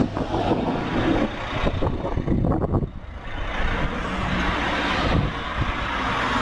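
Traffic passing close by on a highway: the running of a vehicle going past, dropping briefly about three seconds in, then more vehicle noise.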